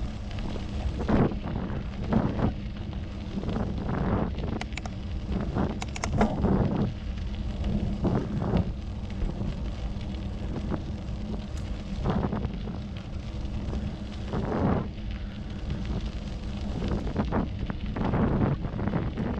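Wind buffeting the microphone of a handlebar-mounted camera on a moving bicycle, over a steady low rumble from the tyres on the path. Louder gusts or bumps come irregularly, every second or two.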